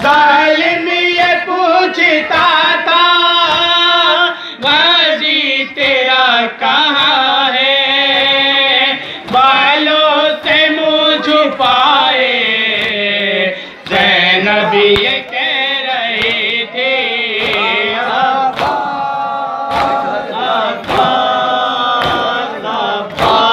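Shia mourners chanting a nauha (Muharram lament) together in a loud, sustained group chant, punctuated by chest-beating (matam) slaps roughly once a second.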